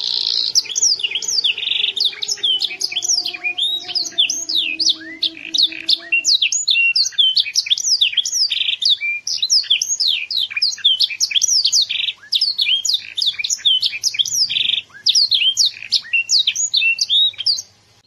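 Young domestic canary singing a long, fast song of rapid sweeping notes and trills, with a few brief pauses; the song stops just before the end.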